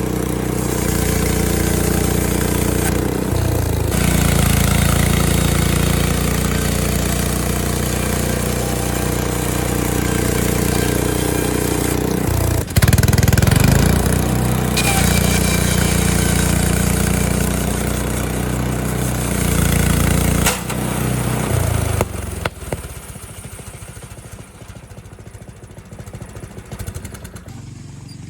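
Small gasoline engine of a Frontier OS23 portable bandsaw sawmill running at speed while the blade cuts a log, with a sharp crack about halfway through. About 22 seconds in the engine drops away and winds down, leaving much quieter sound.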